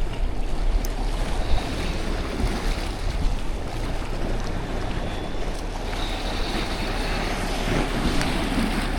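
Sea waves washing against a rocky shore, with wind on the microphone and a steady low rumble underneath.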